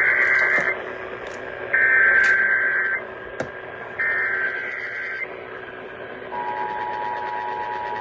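Emergency Alert System SAME header sent as three warbling, modem-like data bursts about a second apart, followed about 6 seconds in by the steady two-tone EAS attention signal, which marks the start of a severe thunderstorm warning broadcast.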